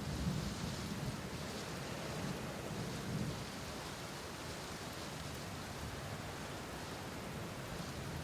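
Steady rain with low rolling thunder, the rumble swelling near the start and again about three seconds in.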